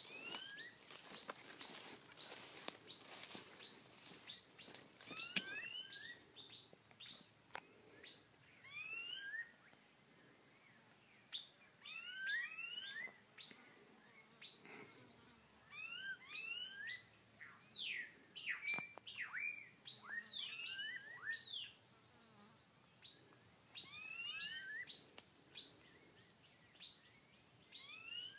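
Small birds chirping: short rising chirps, often in quick pairs or clusters, repeating throughout. A few sharp clicks come in the first five seconds.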